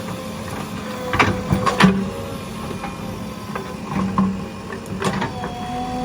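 JCB 3DX backhoe loader's diesel engine running steadily while digging, with knocks and clanks from the bucket and arm about a second in, around four seconds and near five seconds. The engine note rises a little near the end.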